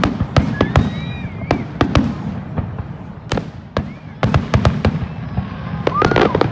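Fireworks bursting in quick, irregular succession, a dozen or more sharp bangs with echoing tails, with a few short whistling glides among them.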